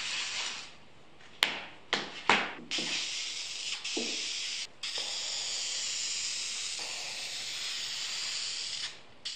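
A few sharp clicks and knocks, then an aerosol spray can spraying finish onto a carved walnut whale: a long steady hiss with one short break, stopping just before the end.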